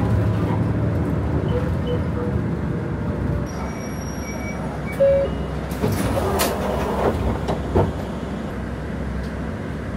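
Inside a city bus: steady engine and road rumble. A short electronic beep comes about five seconds in, then a few sharp clacks and hisses between about six and eight seconds as the bus stops and its door opens.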